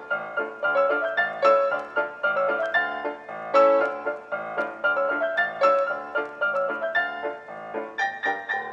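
Background music: a piano playing a steady run of notes, each struck and then fading.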